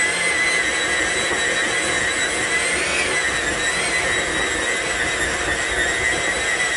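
Hamilton Beach electric hand mixer running steadily as its beaters whip thick brownie batter in a glass bowl: a loud, high motor whine with a brief waver in pitch about three seconds in.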